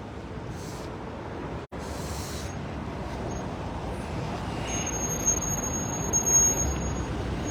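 Vehicle engine running steadily, its low rumble building from about five seconds in, with a thin steady high whine over it for a couple of seconds.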